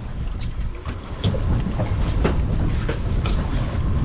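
Low steady rumble of a Mercury outboard motor running at trolling speed, with irregular knocks and clatter as a fishing rod is taken up and handled on the boat.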